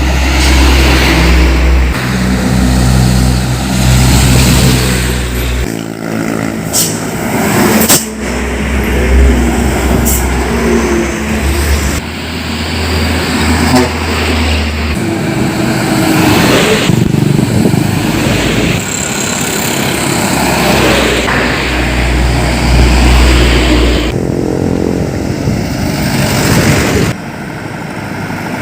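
Heavy trucks and other road traffic passing close by, engine and tyre noise swelling and fading as each vehicle goes past, over a deep rumble.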